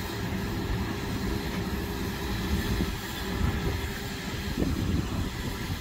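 Steady, low outdoor rumble with a fainter hiss above it and no distinct single event.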